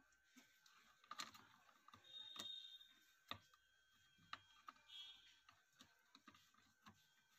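Near silence with faint, scattered clicks and light taps from a home theater amplifier circuit board being handled and turned over in the hands.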